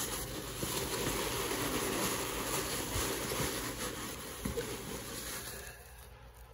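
Styrofoam packing peanuts rustling and shifting as a hand digs through a box of them. The noise dies down near the end.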